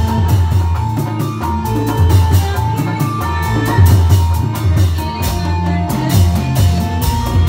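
Live band music for a Reog Indramayu dance: electronic keyboard, electric guitar and drums playing a steady beat over a heavy bass line.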